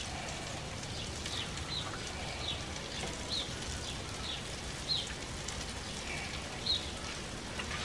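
Steady hiss of asparagus and peppers sizzling on a gas grill, with a songbird calling over it in short high chirps about once a second.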